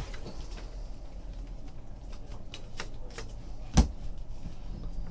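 Football trading cards being flipped through by hand, with faint scattered clicks of card stock and one much sharper click nearly four seconds in, over a low steady hum.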